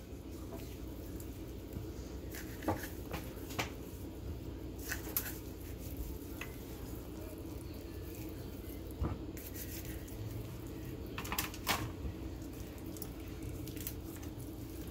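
Hands working seasoning into raw whole fish: quiet handling with a few scattered light clicks and taps, over a steady low hum.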